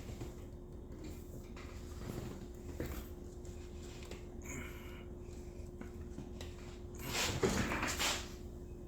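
Quiet hand work on a motorcycle headlight: faint small clicks over a steady low hum. About seven seconds in comes a breathy rush lasting about a second, like a heavy exhale.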